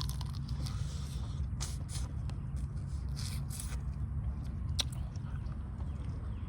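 Crab shells being cracked and picked apart while eating: several short, sharp cracks and scraping noises over a steady low rumble.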